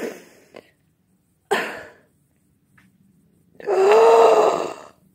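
A woman's distressed wordless voice: two short breathy cries, then a long drawn-out moan about four seconds in, the loudest sound.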